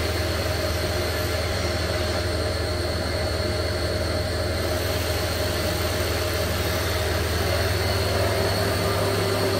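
Haas VF-9/40 vertical machining centre's gearbox-driven spindle running steadily at 6000 rpm in high gear. It makes an even machine hum with a thin, steady high whine over it.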